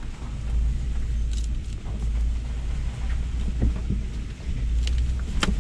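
Cabin sound of a Lexus GX470, with its 4.7-litre V8, crawling in low range over a rocky dirt trail: a steady low drone of engine and tyres, with scattered knocks and rattles from the body and suspension as it goes over rocks, the sharpest near the end.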